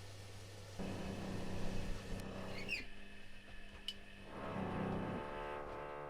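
Privileg Classic 30612 washing machine during a 95°C boil wash: the drum motor hums as the drum turns. It stops briefly, with a few short squeaks, then ramps up again to a whining hum as the drum tumbles the other way.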